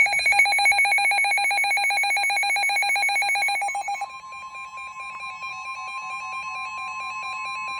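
NOAA Weather Radio alert: a loud, rapidly pulsing electronic data signal (the digital SAME header announcing a severe thunderstorm warning) for about four seconds, then the quieter, steady single-pitch warning alarm tone.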